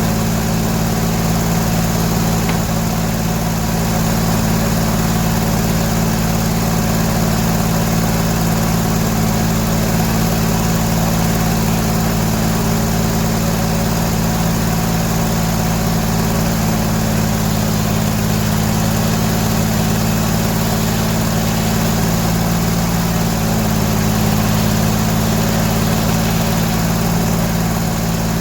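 Sawmill's engine running steadily at a constant speed, a low even drone with no breaks.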